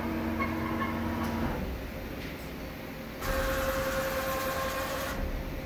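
CNC deburring and chamfering machine moving its abrasive-disc head into position over a low mechanical hum. A steady motor whine stops about a second and a half in. About three seconds in, a loud hiss with a steady tone starts abruptly and lasts about two seconds.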